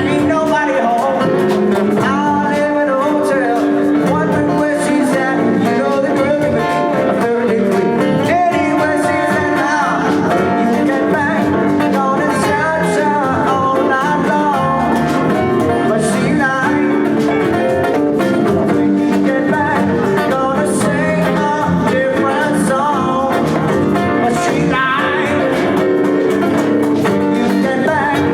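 Live band playing a song at full volume: guitars and drums, with singing.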